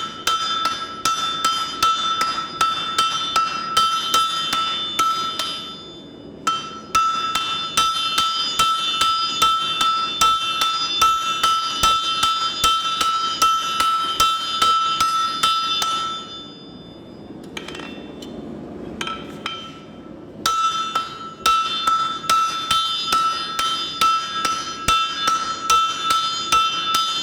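Rapid, steady blows on hot steel over an anvil, struck with the polls of axes, about two to three a second, each with a high metallic ring that carries between blows. The striking stops briefly about six seconds in and again for about four seconds past the middle.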